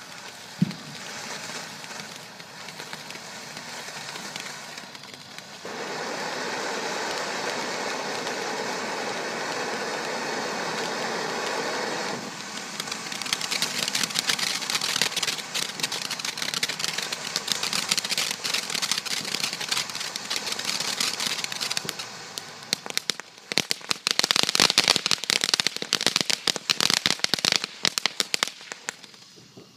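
Ground fountain fireworks spraying sparks. A sharp pop comes about a second in, then a steady hiss, and from about halfway dense crackling that is loudest near the end and then thins out.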